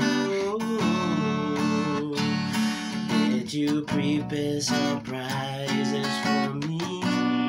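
Nylon-string classical guitar strummed chord after chord in a steady rhythm.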